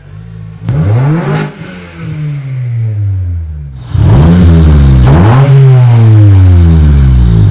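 2004 Acura TSX's 2.4-litre four-cylinder engine, its mufflers deleted, revved in several quick blips, the pitch jumping up and dropping back each time. The blips are louder from about four seconds in, with a raspy tone.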